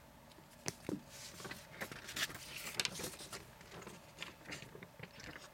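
Faint rustling with scattered light clicks and taps, as papers and packed accessories are handled in a box.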